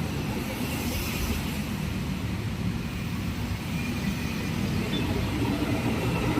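Diesel bus engine running with a low rumble, growing louder near the end as it draws closer.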